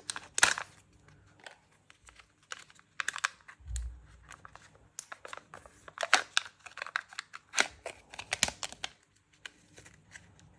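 The seal being peeled off a Kinder Joy egg's toy half, crinkling and tearing in irregular bursts, with small plastic clicks and crackles as the toy capsule is handled. A dull thump a little under four seconds in.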